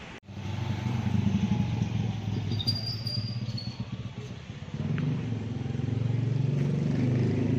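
Engine of a parked vehicle idling steadily while left running unattended, its exhaust close by; the running gets louder about five seconds in.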